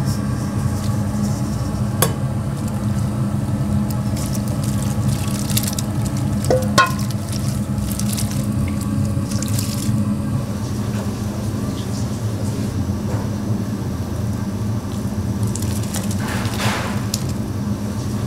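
Kitchen noise: a steady low mechanical hum throughout, with scattered clinks of dishes and utensils, one ringing clink about seven seconds in, and a few short bursts of hissing.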